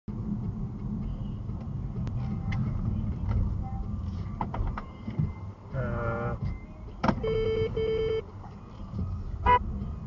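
Car interior noise while driving and slowing down: a steady low road and engine rumble, with scattered clicks and two short steady beeps about seven seconds in.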